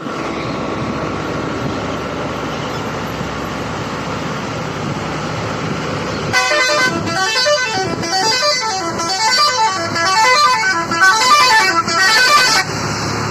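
Steady running noise of a moving vehicle, then about six seconds in a truck's musical multi-tone horn plays a repeating rising-and-falling run of notes for about six seconds before stopping.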